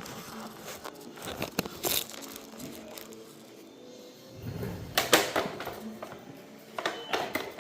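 Plastic cover of an ECG machine being pried and pulled off its housing: scattered plastic clicks and handling knocks, with sharper knocks about two seconds and five seconds in.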